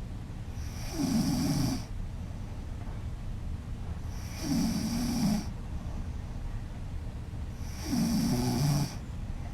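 A woman snoring loudly: three snores, each about a second long, coming regularly about three and a half seconds apart.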